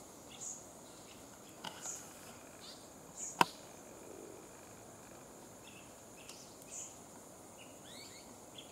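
Faint scattered short, high bird chirps over a steady, high insect drone, with one sharp click about three and a half seconds in.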